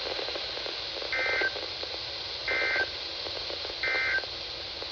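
NOAA Weather Radio's SAME end-of-message signal: three short two-tone digital data bursts about a second and a half apart, closing an EAS tornado warning, over steady radio hiss.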